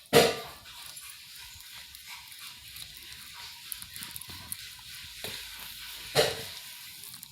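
Cat eating raw chicken meat, with soft wet chewing and tearing sounds and no bone crunching. Two louder sudden sounds cut in, one at the very start and one about six seconds in.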